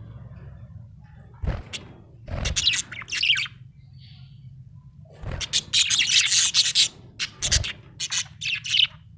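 Budgerigar chirping and chattering in several bursts of rapid high warbling notes, with a few low thumps among them, over a steady low hum.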